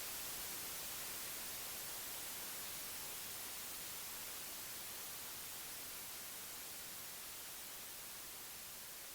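Steady white noise, an even hiss strongest in the high frequencies, slowly fading.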